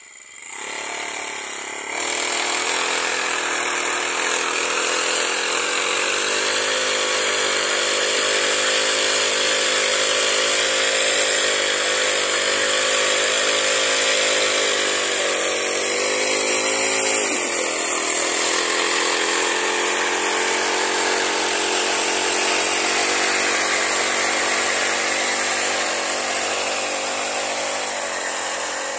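Small four-stroke grass-cutter engine running at high speed, driving a gearbox-mounted mini tiller head through the soil. The engine note holds steady with slight wavering and dips briefly a little past halfway before recovering.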